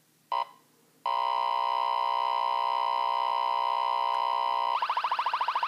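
Cobra XRS 888 radar detector alerting: a short beep, then from about a second in a steady K-band full-signal alert tone from a radar gun. Near the end it switches abruptly to a rapid pulsing laser alert as an infrared beam hits it, the laser alert taking priority over the radar alert.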